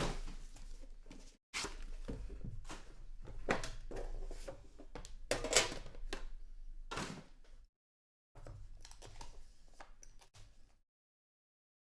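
Hands handling and opening a sports card box and its packaging: cardboard scraping and sliding, with sharp clicks and light knocks, in bursts that stop and start.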